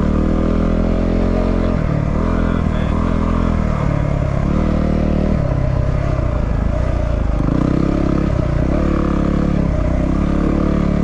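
A 250cc single-cylinder dual-sport motorcycle engine being ridden through soft sand, the revs rising and falling again and again every second or two as the throttle is worked.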